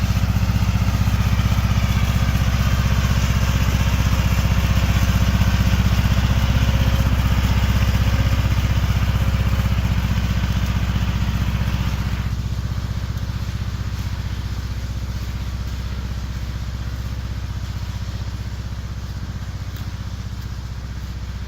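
Riding lawn mower's engine running steadily. About twelve seconds in, the higher part of the sound drops away and it grows gradually quieter.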